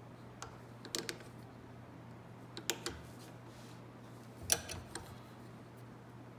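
Faint scattered metallic clicks and taps of a hand pop-rivet tool and steel rivets being handled as a rivet is set into the strip, over a steady low hum.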